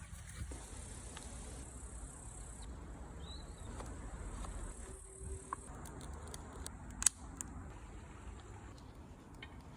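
Faint outdoor ambience of steady high-pitched insect chirring, with a few sharp clicks about two-thirds of the way through; one click is much louder than the rest.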